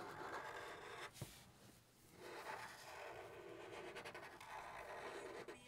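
Faint scratching of Sharpie marker tips on paper as circles are drawn, with a short pause a little over a second in.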